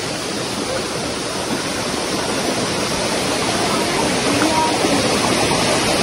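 Steady rush of flowing water from a rocky woodland stream, slowly growing a little louder.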